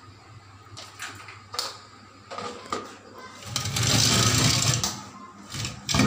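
Handling noise of a handheld phone being moved about: a few light knocks, then a louder rubbing scrape with a low rumble lasting about a second and a half from about three and a half seconds in, and a sharp knock near the end.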